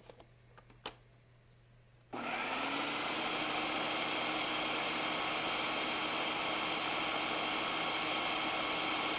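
A few light clicks as the lid of a Ninja food processor is handled. About two seconds in, its motor starts, rises briefly in pitch as it spins up, then runs steadily, chopping collard greens and olive oil into pesto.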